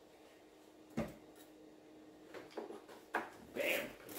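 Scattered light knocks and clunks of someone handling the riding lawn mower and moving onto its seat, with one sharp knock about a second in; quiet between them.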